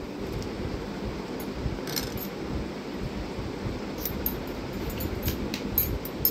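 Metal spoon stirring vermicelli kheer in a metal pot: light scraping, with sharp clinks against the pot about two seconds in and several more near the end, over a steady low rumble. The vermicelli is almost cooked in the milk.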